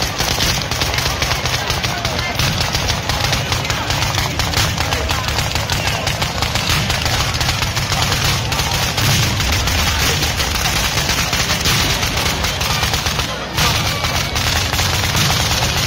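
A ground-level fireworks battery (batteria) of firecrackers going off in a rapid, unbroken crackling barrage, with a brief break about thirteen seconds in.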